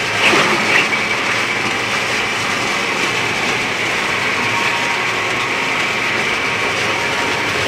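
Stone grist mill running, its millstones and drive making a steady mechanical noise, with a short louder squeak-like sound about half a second in.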